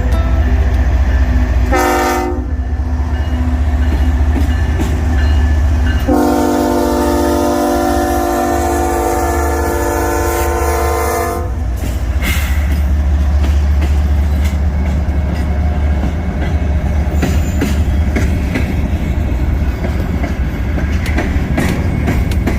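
Iowa Interstate freight train led by a GE ES44AC diesel locomotive, its engine rumbling low throughout. The multi-note air horn sounds a short blast about two seconds in, then a long blast of about five seconds.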